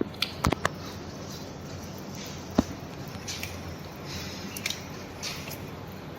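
Metal surgical instruments clicking and clinking during an operation: a quick cluster of sharp clicks about half a second in, a single louder click a couple of seconds later, and soft rustling handling in between.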